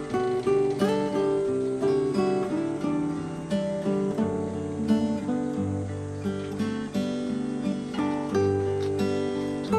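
Background music: acoustic guitar plucking a melody with chords, one note after another.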